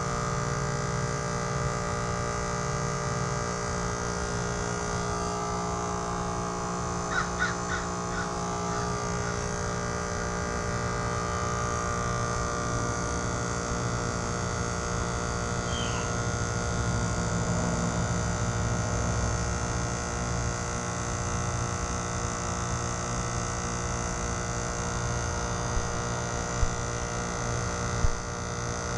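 Trane XR14 heat pump running in defrost mode: the compressor keeps up a steady hum made of many fixed tones. A short run of quick chirps comes about a quarter of the way in, and two sharp clicks near the end.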